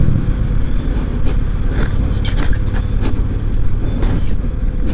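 Motorcycle running on the move, a loud steady low rumble of engine and road noise, with a few short clicks through the middle.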